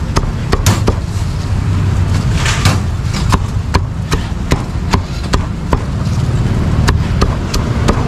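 Cleaver chopping roast meat: sharp, short chops at an uneven pace of about two a second, over a steady low rumble of street traffic.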